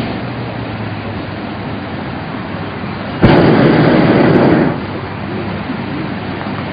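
Hot air balloon's propane burner firing one loud blast about three seconds in, starting abruptly and cutting off after about a second and a half, over a steady rushing noise.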